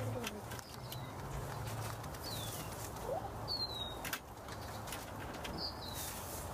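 Chickens dust bathing in dry coop bedding, with scattered scratching and rustling. Several short, high bird chirps that fall in pitch come through, over a steady low hum.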